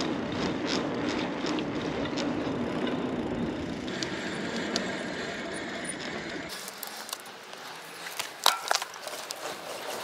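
Carrera Hellcat mountain bike being ridden: steady tyre and wind noise with scattered clicks and rattles. The low rumble drops out suddenly about six and a half seconds in, and a few sharp clicks come a couple of seconds later.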